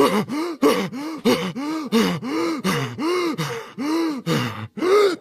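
A cartoon character's voice making a quick run of about a dozen short non-word cries, each rising then falling in pitch, that stops suddenly near the end.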